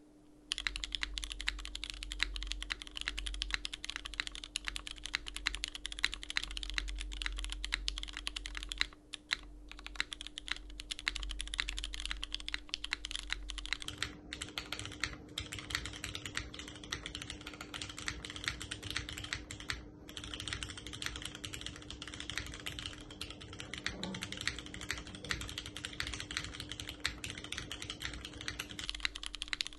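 Continuous fast typing on a JJW Cloudline V2 mechanical keyboard: an aluminium plate, Cherry MX Hyperglide Black switches with Gateron Milky Yellow Pro tops, and OG doubleshot keycaps, making a dense run of key clicks. About halfway through the recording switches from a close dynamic mic to a phone's camera mic, which picks up more low rumble.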